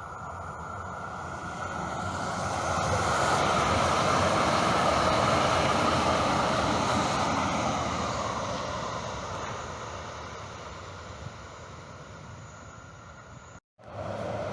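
A vehicle passing by: a rushing noise that builds to a peak a few seconds in and then slowly fades away, broken off abruptly near the end.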